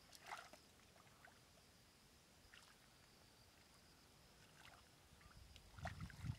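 Faint small splashes and squelches of hands in shallow mud and water, growing louder near the end as the hands plunge into the water to grab an eel.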